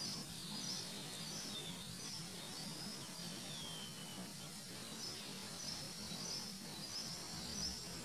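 Birds chirping in many short, high twittering calls, with a few falling whistled notes, over a steady low hum.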